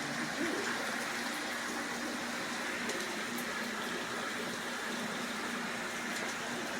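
Rain falling steadily in a rainstorm, an even rushing hiss of water with a few scattered drop ticks.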